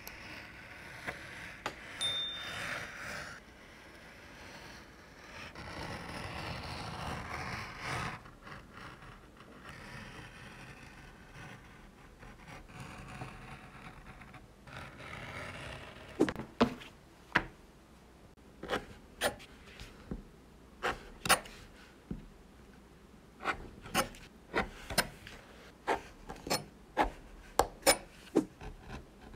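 A hobby knife blade is drawn through leather along a steel ruler, making several long scraping strokes. About halfway through the scraping gives way to an irregular string of sharp clicks and taps.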